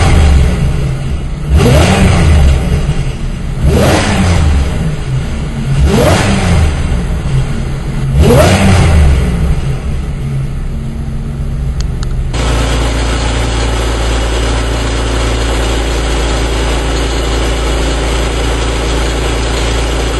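Supercharged 3.8-litre V6 of a 1998 Pontiac Grand Prix GTP, fitted with a 3.4-inch supercharger pulley and cold air intake, revved sharply four times about two seconds apart, each rev rising and falling back. About twelve seconds in, the sound cuts abruptly to a steady, even engine note.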